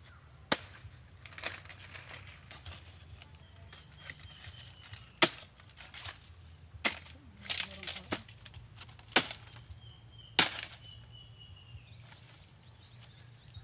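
Machete hacking at the stalk of a nipa palm fruit bunch: a string of sharp chopping strikes, irregularly spaced with pauses between them, several of them very loud. The stalk is tough and does not come free.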